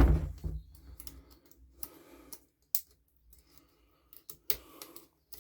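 Scattered light clicks and taps of small hand tools and feeler gauges working on the valve gear of a small four-stroke engine during a valve-clearance adjustment. There is a louder knock and handling noise at the very start.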